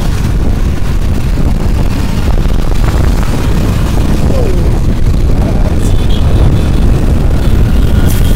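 Wind buffeting the microphone of a motor scooter on the move, a loud steady deep rumble, over scooter engine and road traffic noise.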